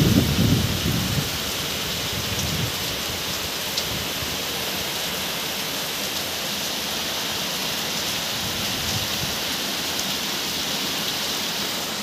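Heavy rain pouring steadily onto a street and rooftops. A low rumble in the first second is the loudest part.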